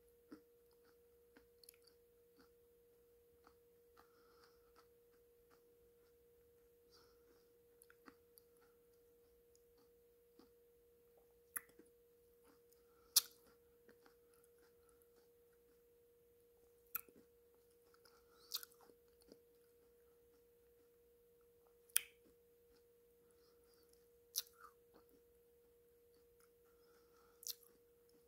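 Faint close-up mouth sounds of a person chewing a soft black clay paste: sharp, wet lip and tongue clicks every few seconds, about seven in the second half, over a steady faint hum.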